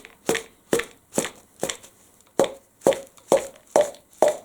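A small metal plumber's key tapping repeatedly on the hollow shell of a chocolate Easter egg, knocking a hole in it: sharp knocks about two a second, each with a short hollow ring, with a brief pause midway.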